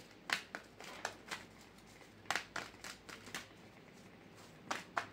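Tarot cards being handled and drawn from the deck: a scattered series of short, light snaps and taps, in clusters about a second apart.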